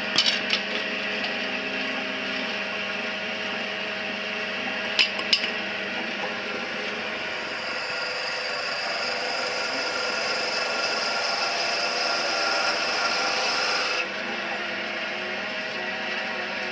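Motor-driven broom-handle pointing machine running with a steady hum. About seven seconds in, a wooden broom handle is fed into its cutter and the blades shave the wood with a loud rasping hiss for about six seconds, which stops abruptly. There are a few sharp knocks near the start and two more about five seconds in.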